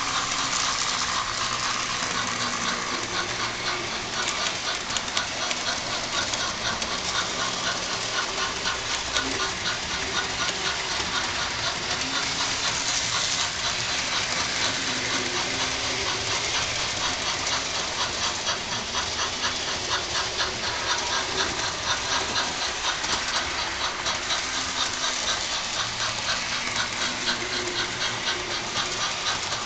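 Model 2-6-0 steam locomotive running with its DCC sound decoder playing steady, rapid steam chuffing with hiss through a small speaker.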